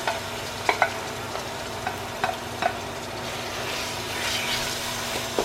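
Sizzling in a pot of tomato-and-spice masala as yogurt-marinated mutton is stirred in, a spoon clinking against the pot several times.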